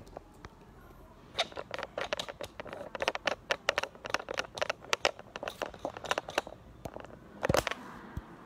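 Rapid, irregular crackling clicks, several a second, starting about a second and a half in, with a louder cluster shortly before the end.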